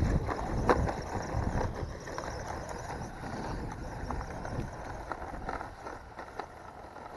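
GPTOYS S926 1:12 scale 4WD RC truck driving over rough, rocky ground: its motor running under irregular clattering knocks from the tyres and chassis, fading as it moves away.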